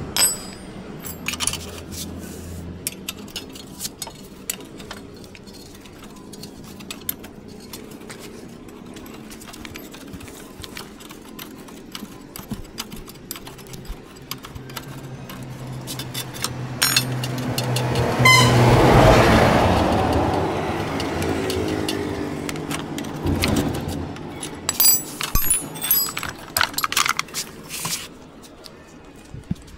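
A motor vehicle engine runs with a low hum, swells louder about two-thirds of the way through and dies away. Scattered metallic clicks and jingles sound throughout, thickest near the end.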